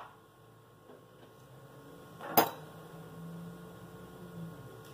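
Quiet room tone with a faint hum, and a single light knock of a spoon about two and a half seconds in, as a spoonful of dulce de leche is scooped from its tub.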